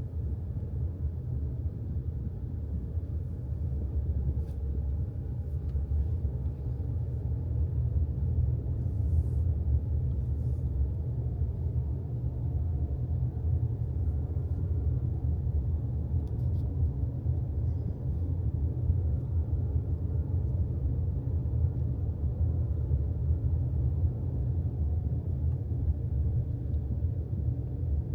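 Steady low rumble, continuous and without pauses.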